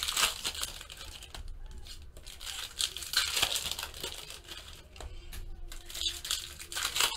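Foil trading-card pack wrappers crinkling and tearing as packs are ripped open and the cards pulled out, in several bursts.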